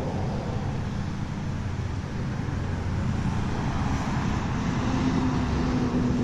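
Road traffic rumbling, with a school bus's engine drone growing louder as it drives past in the second half.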